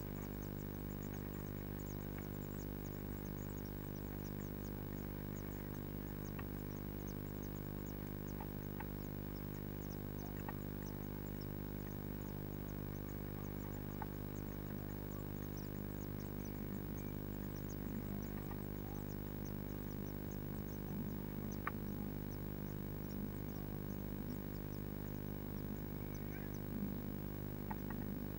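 Steady electrical hum with many overtones from the nest-box camera's audio, under faint high ticking. In the last third, soft rustling as an adult blue tit shifts in the nest lining.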